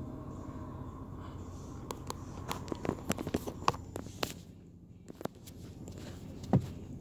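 Low, steady road rumble inside a moving car's cabin, with a run of sharp clicks and knocks partway through and one loud thump near the end.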